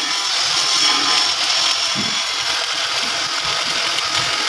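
A power tool running steadily, a dense high-pitched noise with no break.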